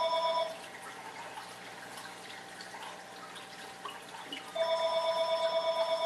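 Telephone ringing off to the side: a fluttering electronic ring made of several steady tones. One ring ends about half a second in, and a second ring of about two seconds starts about four and a half seconds in.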